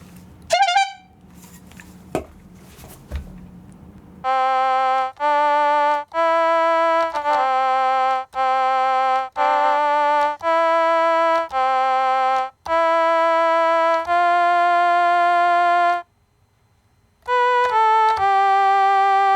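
Simple electronic keyboard melody in a buzzy, single-voice synth tone: held notes one at a time with vibrato, broken by short gaps and a brief pause near the end. It is preceded by a few faint clicks and a short electronic blip.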